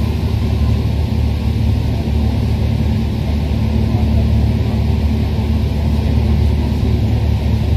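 Paris Métro Line 1 rubber-tyred train running at speed through a tunnel, heard from inside the car: a loud, steady rumble.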